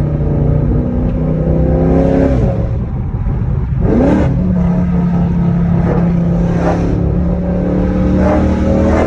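Chrysler 300C's V8 engine pulling under way through gear changes: the engine note falls away a little past two seconds in, then sweeps up sharply about four seconds in, holds, and climbs again near the end.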